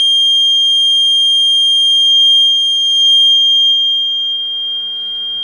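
A loud, steady 3 kHz sine test tone played through a small loudspeaker driven by a DIY TDA2003 amplifier during a power test. Its fainter higher overtones die away partway through, leaving the single pure tone.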